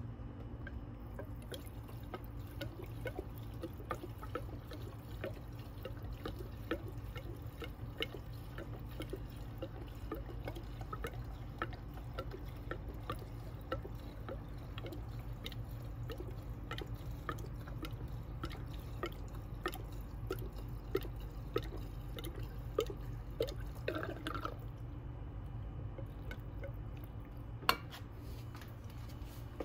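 Fuel mix being poured from a spouted can into a Husqvarna 371 XP chainsaw's fuel tank: faint gurgling and dripping, many small ticks over a steady low hum, with a sharper click near the end.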